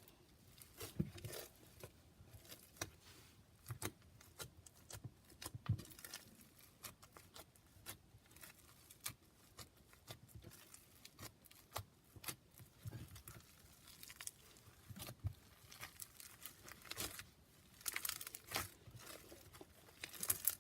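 Crunchy foam-bead slime being squeezed by hand: faint, irregular crackles and pops from the foam beads, coming thicker near the end.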